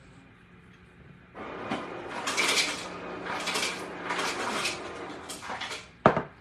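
Salt shaker shaken over a bowl of cornbread dressing, a rattling rustle that swells about once a second, followed near the end by a sharp knock.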